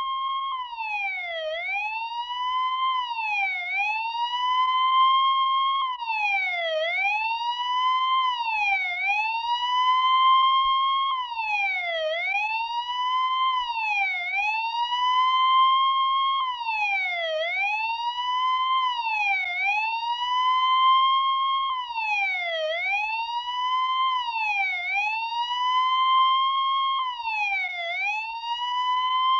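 Electronic siren alarm sounding continuously. Its pitch drops sharply and climbs back again and again, about every one to two seconds, now and then holding the high note for a couple of seconds.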